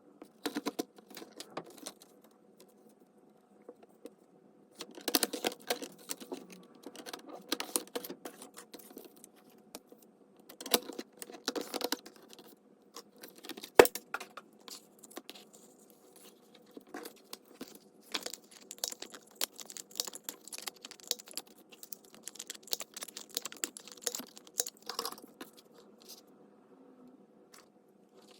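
Paper and craft materials being handled on a desk: irregular rustling, tapping and small clicks, with one sharp click about halfway through.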